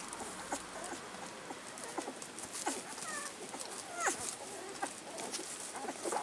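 Two-week-old rough collie puppies squeaking, with a few short high squeaks about three and four seconds in, among many small soft clicks.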